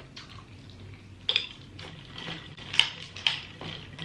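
Wet eating and handling sounds from a sauce-covered seafood boil: sticky smacks and a few sharp clicks and crackles, the loudest about a second in and again near three seconds.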